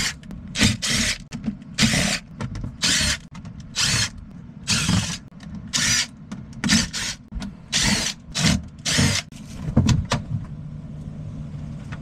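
Cordless drill-driver run in about a dozen short bursts roughly a second apart, backing the sheet-metal screws out of an air handler's access panel, over a steady low hum.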